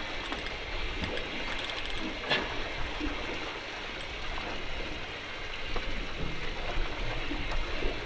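Steady sloshing of sea water along a boat's hull, with a single sharp click a little over two seconds in.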